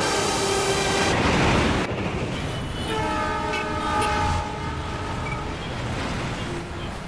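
Suburban electric commuter train running past with a rushing rumble, its horn sounding for about a second and a half near the middle; the sound fades toward the end.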